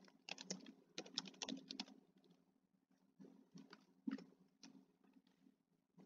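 Typing on a computer keyboard: quick runs of faint keystrokes, a pause of about a second in the middle, then a few scattered keys.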